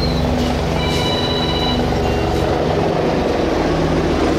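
Airbus A320's jet engines running at taxi power: a steady low rumble with a hum.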